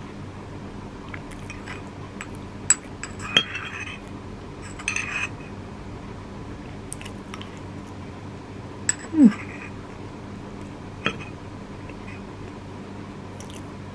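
A metal spoon clinking and scraping against a porcelain bowl a few separate times, with soft chewing sounds between. About nine seconds in, a short vocal sound falls in pitch.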